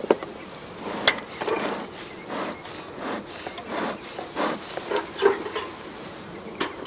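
Wooden beehive frames and boxes scraping, rubbing and knocking as frames are worked loose, with a sharp knock about a second in and another near the end. Honey bees buzz around the open hive.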